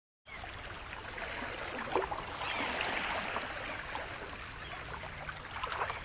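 Small waves lapping and splashing at a lakeshore, with a few faint gull calls over the water.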